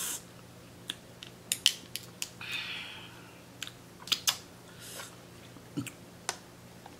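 Close-miked eating sounds: sharp clicks and cracks of mussel shells handled and pried apart between the fingers, with wet mouth noises of chewing and sucking.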